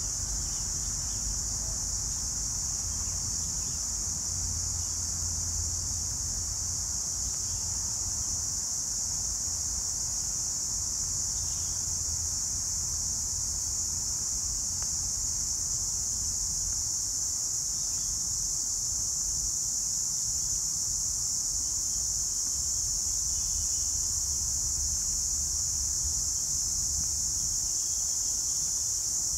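A steady, high-pitched drone of insects chirring in the trees, unbroken throughout, with a low rumble underneath.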